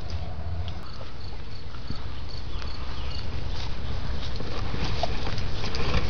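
Steps through tall wet grass and brush, with rustling and brushing that gets louder and busier from about halfway in. A low rumble on the microphone runs under it, and faint high insect chirps repeat in the first half.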